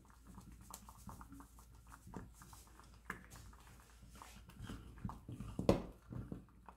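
Wooden spoon stirring thick maize-meal porridge (sadza) in a pot: faint scraping and soft knocks against the pot, with a louder knock near the end.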